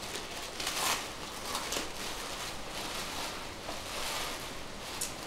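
Paper rustling as a pocket letter is unwrapped and handled, with a few short louder rustles about a second in and near the end.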